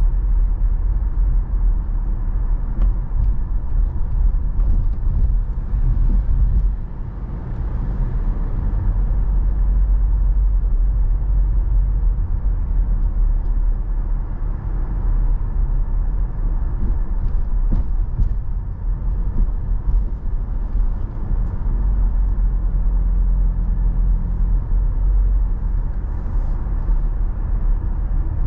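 Car driving at low speed, heard from inside the cabin: a steady low rumble of engine and tyres on the road, with a brief dip in loudness about seven seconds in.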